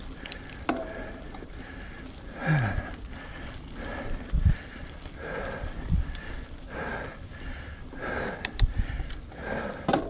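Mountain biker breathing hard and rhythmically under effort, about one breath every three-quarters of a second, with a few short knocks from the bike.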